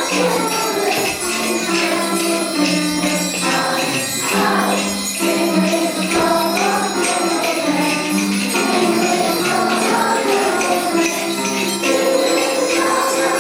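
Music with jingle bells shaken continuously over a melody of held notes.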